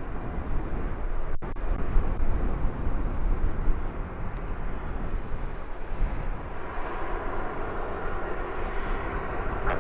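Aircraft engines running as planes taxi out, under heavy gusty wind rumbling on the microphone. The engine noise grows stronger about two-thirds of the way in.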